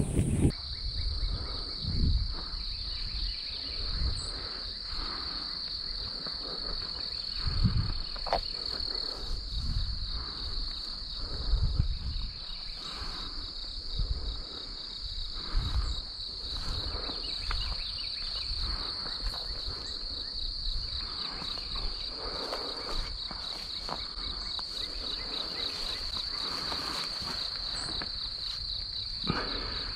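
Crickets or similar insects trilling steadily at a high pitch, with low thuds of footsteps on grass and a dirt track now and then, mostly in the first half.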